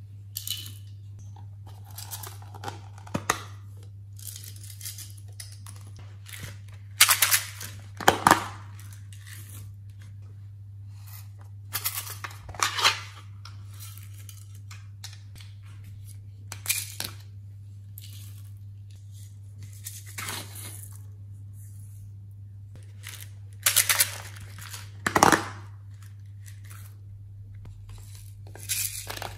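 Handling noises of slime-making ingredients: sharp plastic rustles, crinkles and clicks every few seconds as small plastic pieces and bags are picked up and glitter is tipped into a tray. A steady low hum runs underneath.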